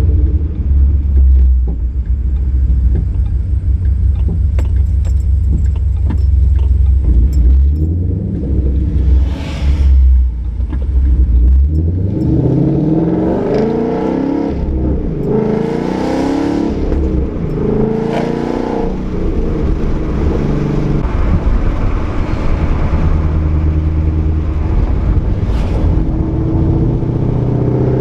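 Ford Mustang 5.0 V8 with a Roush axle-back exhaust and off-road X-pipe, cruising with a steady low rumble. About halfway through it accelerates hard, the exhaust note rising in a few successive pulls through the gears, then it settles back to a steady cruise.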